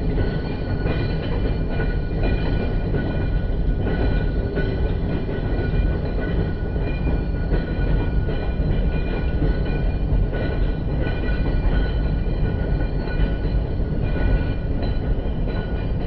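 Knoebels Twister wooden roller coaster's train being hauled up the lift hill, played back in slow motion: a continuous low, dense clattering with no break.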